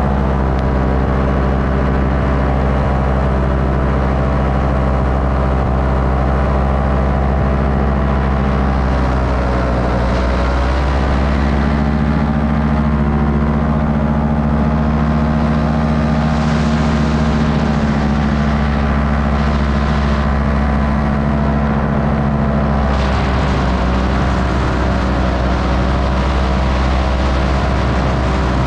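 A paramotor's engine and propeller running steadily in flight, close up. The engine note dips about ten seconds in, comes back a little higher, and drops again about two-thirds of the way through, with a rush of wind coming and going in the middle.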